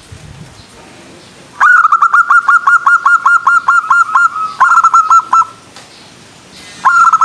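Zebra dove (perkutut) cooing in rapid runs of short, evenly spaced notes, about six a second: a long run starting about a second and a half in, a shorter run soon after, and another starting near the end.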